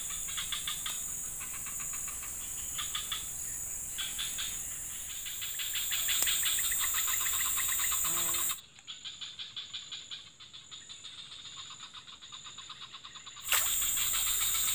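Chorus of insects chirring: a steady high-pitched drone with quicker pulsing trills over it. A little past halfway the high drone drops out for about five seconds, leaving fainter pulsing calls, then comes back.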